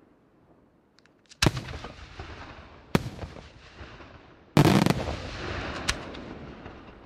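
Aerial firework shells bursting overhead. Four bangs, about a second and a half in, at three seconds, at four and a half seconds (the loudest and longest), and near six seconds. Each fades out in a rumbling tail.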